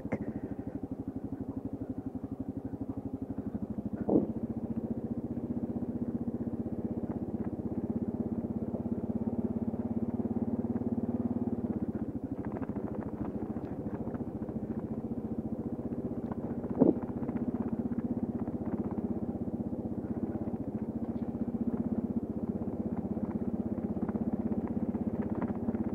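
Kawasaki KLR 650's single-cylinder four-stroke engine running steadily as the bike rides a rocky dirt trail. Two sharp knocks stand out, one about four seconds in and another past the middle.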